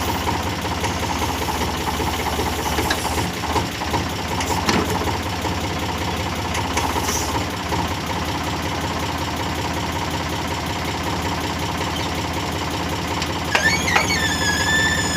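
Diesel engine of a tractor-mounted loader running steadily with a throbbing low rumble. Near the end a melody with sliding notes comes in over it.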